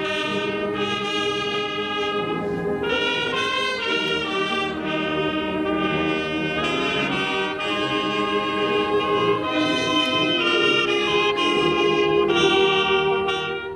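Background music of slow, held chords that change about once a second, at a steady level.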